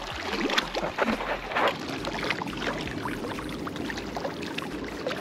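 Small waves lapping and splashing irregularly against the rocks of a lake shore.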